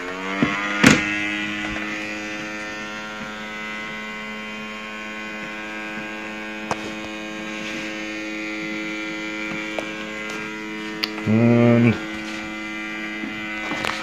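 Small motor of a cheap AA-battery robot vacuum spinning up as it is switched on, rising in pitch, then running at a steady hum. A sharp click about a second in, and a short louder burst about eleven seconds in.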